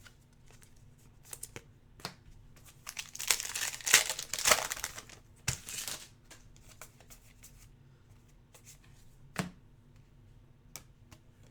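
Basketball trading-card pack wrapper torn open and crinkled, with a cluster of loud rustling between about three and six seconds in. Scattered light taps come through elsewhere, and a sharper tap about nine seconds in.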